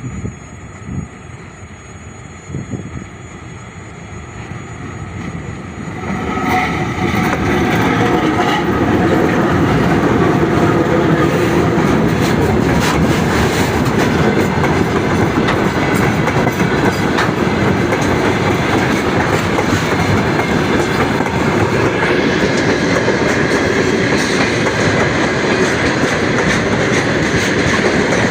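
Freight train hauled by a VL10U electric locomotive rolling in, growing louder over the first several seconds, then a steady clatter of wheels over rail joints as the train runs past.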